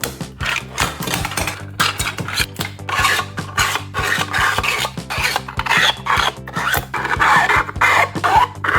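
Quick, repeated rasping and scraping strokes, like filing or sanding a hard surface, over background music with a steady beat.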